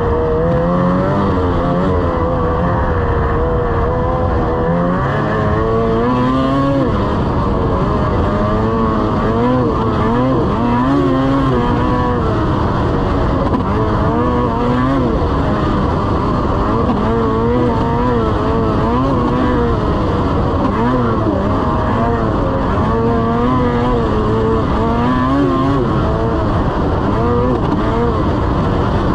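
Lynx RS 600 snowmobile engine running under way, its pitch rising and falling again and again with the throttle.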